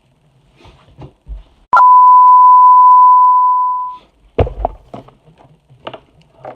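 A loud, steady 1 kHz bleep tone held for a little over two seconds, the standard tone used to censor a word. A thump follows just after it, with a few faint knocks around it.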